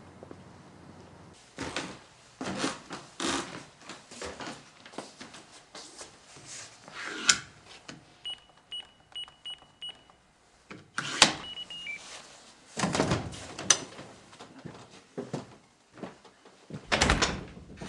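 Electronic keypad door lock beeping as a code is entered, about five short even beeps, then a clack and a short falling chime as the lock releases. Around it are rustles, footsteps and loud knocks of door and bag handling.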